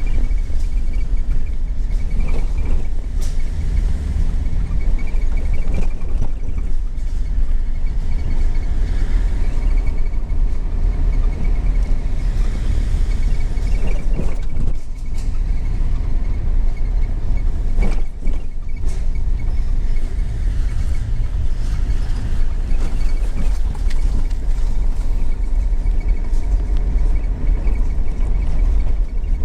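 A vehicle driving, a steady low engine and road rumble, with a few short knocks about halfway through.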